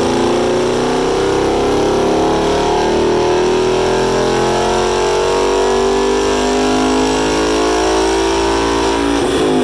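Ford Mustang's 5.0-litre Coyote V8 at wide-open throttle on a chassis dyno, its pitch climbing steadily through one long pull. Just before the end the throttle closes and the revs fall away sharply.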